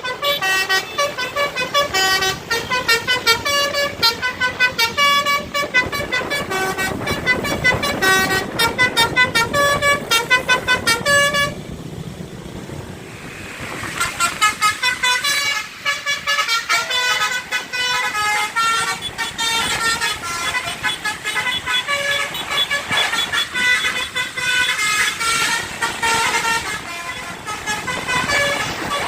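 Tour bus's basuri telolet horn, a multi-tone air horn, playing fast melodic runs of short notes. The notes break off for about two seconds partway through, leaving bus and road noise, then start again.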